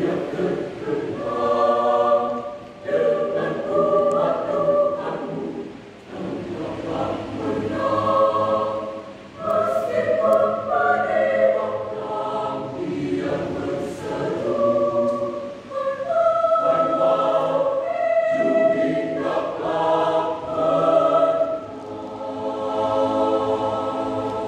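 Mixed youth choir of men and women singing, in sustained phrases with short breaks between them.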